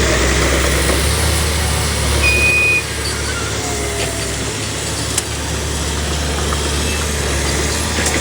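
Small bulldozer's diesel engine running steadily, dropping slightly in level about three seconds in, with a short sharp click about five seconds in.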